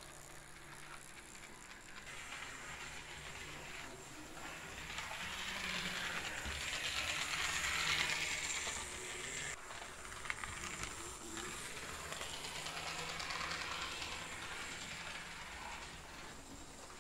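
Model locomotive G12 chassis, its small electric motor and gear train running along the track. The faint mechanical whir grows louder about halfway through, then eases off.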